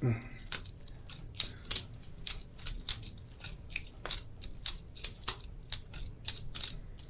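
Boker Plus balisong butterfly knife being flipped open and closed: its handles clack and click against each other and the blade, sharp clicks at about three a second in an uneven rhythm.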